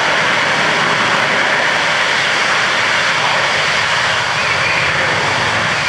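Harrier jump jet's Rolls-Royce Pegasus vectored-thrust turbofan held at hover power, a loud, steady jet noise as the aircraft hangs in the air and descends for a vertical landing.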